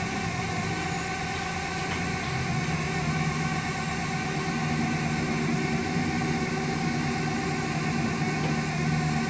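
Steady mechanical running hum with several constant tones from a livestock truck's deck-lift machinery as the movable middle deck rises, the low hum growing a little stronger about two and a half seconds in.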